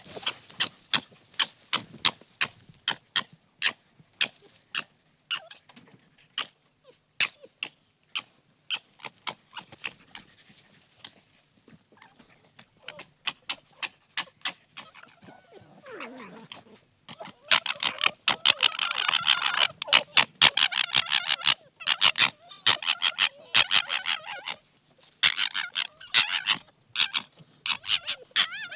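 Young foxes fighting: short, sharp high-pitched calls, a few a second, then from about two-thirds through a denser, louder stretch of rapid chattering calls.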